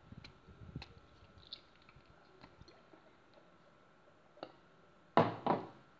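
Light clicks and taps of kitchen handling, then two louder short sounds in quick succession a little after five seconds in.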